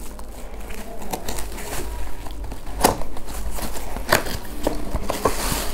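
Cardboard box being handled and opened, with the plastic wrap crinkling and crackling and two sharper knocks against the box about three and four seconds in.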